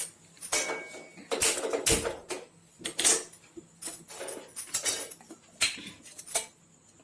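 Kitchen pots, pans and utensils being handled and set down: a series of about eight separate knocks and clinks.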